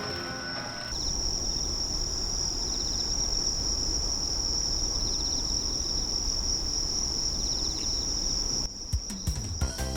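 Insects trilling: a steady shrill chorus with pulsing chirps over a low background rumble, which cuts off near the end as music comes in.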